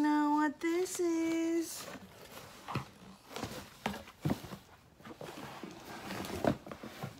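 A woman's voice holds a steady wordless note twice in the first second and a half. Then a cardboard shipping box and its paper slip rustle, scrape and tap as the box flaps are handled and pulled open.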